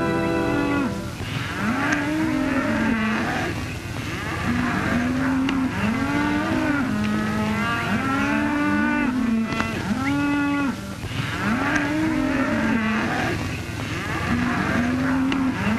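A herd of cattle lowing, with many overlapping moos one after another, starting about a second in as music fades out.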